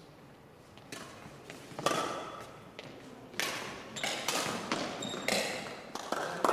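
Badminton rackets striking a shuttlecock back and forth in a rally: a string of sharp hits that come closer together in the second half, mixed with footfalls on the court floor.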